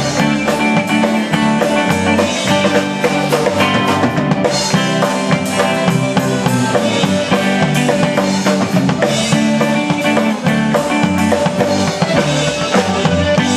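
Live rock band playing, with the drum kit's snare and cymbals driving a steady beat under electric guitar.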